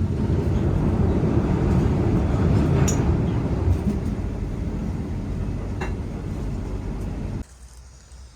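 Train running: a steady low rumble with a couple of sharp clicks. It cuts off abruptly about seven seconds in.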